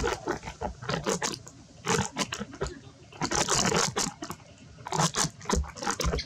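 Macaque chewing food, with crunching and crackling in short irregular bursts, about six of them.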